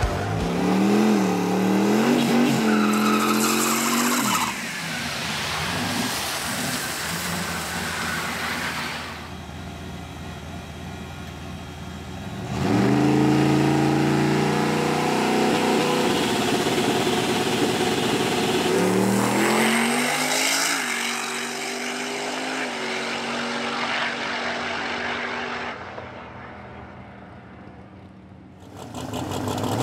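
Drag-race cars accelerating hard down the strip: engines revving high and climbing in pitch in several separate runs, one starting suddenly and loudly about twelve seconds in.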